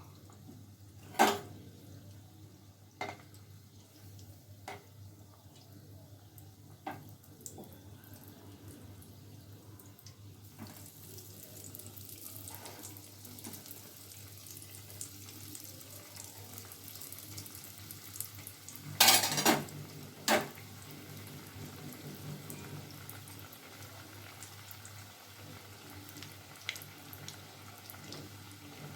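Cheese balls frying in hot oil: a steady hiss of sizzling sets in about a third of the way through. Scattered knocks of a utensil against the pan, the loudest a short cluster a little past halfway.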